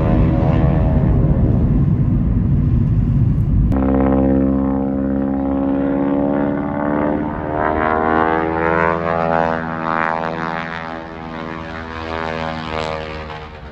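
Propeller-driven light aircraft's engine droning overhead, its pitch slowly rising and falling as it flies. It follows a low rumble that cuts off suddenly about four seconds in.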